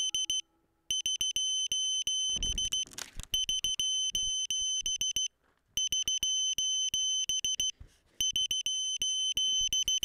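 FPV quadcopter's onboard lost-model beeper sounding rapid trains of short high-pitched beeps, about ten a second, broken by short pauses. A brief rustle of handling comes about two and a half seconds in as the quad is picked up.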